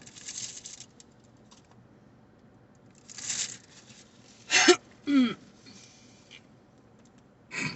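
A person hiccuping: two sharp, loud hics in quick succession about halfway through, each dropping in pitch, and another near the end, with a breath between them.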